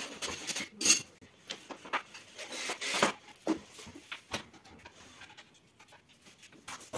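Clatter of flat-pack furniture parts being handled: knocks and clicks of boards and small hardware clinking, with a longer scrape near three seconds. The loudest knock is about a second in.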